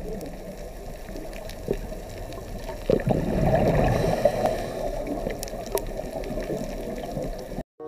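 Aquarium water bubbling and gurgling steadily, with scattered small clicks, a little louder about three to five seconds in.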